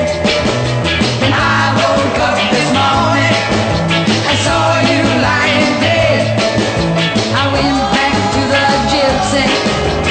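A 1965 British pop single playing: a full band with a stepping bass line and a steady beat.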